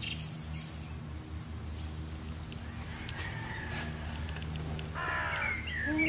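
Forest ambience: birds give a few short chirps and whistled calls, the clearest about five seconds in and near the end, over a steady low hum.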